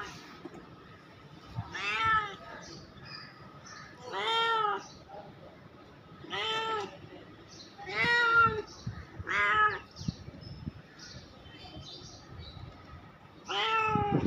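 Domestic cat meowing repeatedly: about seven meows, each rising then falling in pitch, spaced a couple of seconds apart. A pause of a few seconds comes before a last meow near the end.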